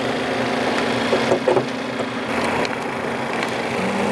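Steady engine hum, like a vehicle idling, with a few short noises about a second and a half in.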